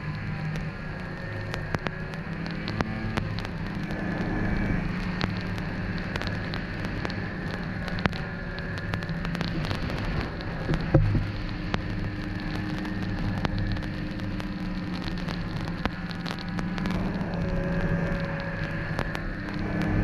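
Snowmobile engine running while riding, its pitch holding fairly steady with small rises and falls, under a constant crackle of sharp clicks. There is one louder knock about eleven seconds in.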